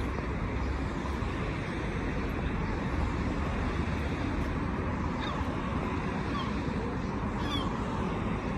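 Steady outdoor background rush on a seafront, with a few faint short bird chirps from about five seconds in.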